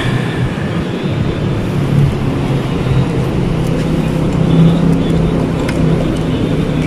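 A motor vehicle engine idling steadily, a low even hum, with a few faint clicks over it.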